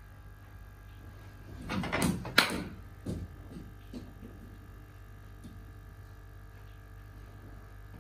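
Cricket bat striking a ball with one sharp crack about two and a half seconds in, just after a short scuffle of noise, followed by a few lighter knocks as the ball bounces away.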